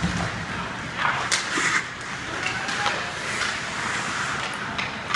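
Ice hockey play on the rink: skate blades scraping the ice and sticks clattering, with a couple of sharp scrapes about a second and a half in.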